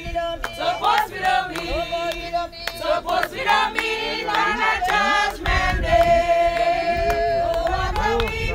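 A group of mourners singing a funeral hymn together, several voices at once, holding one long note in the second half.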